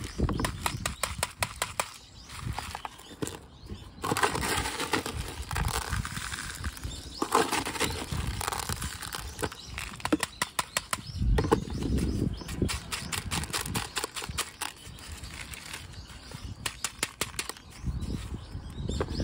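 Coarse granular bonsai soil rattling and crunching in a small plastic pot as the pot is handled and jostled, in dense runs of quick clicks with a few low knocks.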